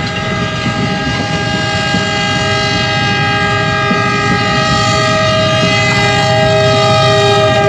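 Diesel passenger locomotive sounding its multi-note air horn in one long continuous blast, a chord held steady and growing louder as the train closes in. Under it runs the rumble of passenger coaches rolling by on the adjacent track.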